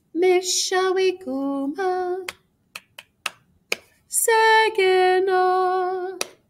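A woman singing two slow, drawn-out phrases alone, with finger snaps keeping the beat at about two a second in the gap between them.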